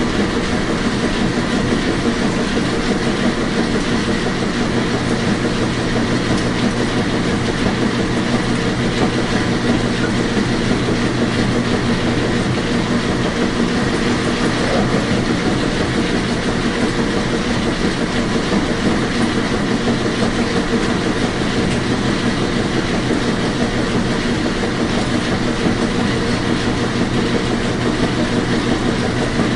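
Washing machine running: a steady, even whir with a faint hum underneath, unchanging throughout.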